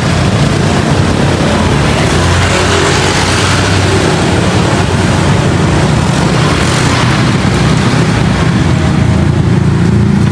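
Steady road traffic, mostly motorbikes and cars running past close by, with a continuous low engine rumble.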